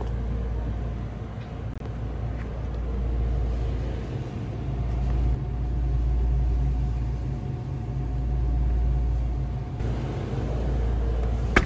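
Low rumbling noise that swells and fades every two seconds or so, with a sharp click near the end.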